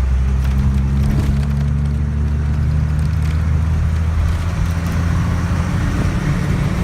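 Bus on the move, its engine running with a steady low drone under a rushing road and wind noise.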